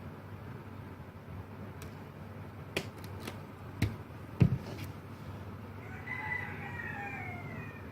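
A few sharp clicks and knocks of plugs and cables being handled, the loudest about four and a half seconds in. Near the end a rooster crows once in the background, a call of about two seconds that falls in pitch.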